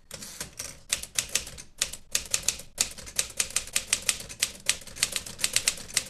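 Manual typewriter being typed on at a steady pace, its type bars striking the paper in a quick irregular run of sharp clacks, several a second, with a couple of brief pauses.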